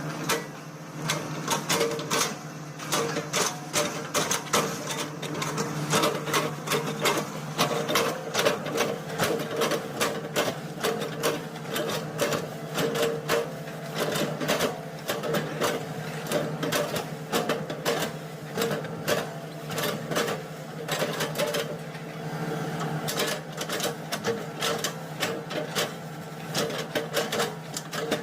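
Excavator engine running steadily under a dense, irregular series of cracks and clicks as the machine chops oil palm trunks into chips.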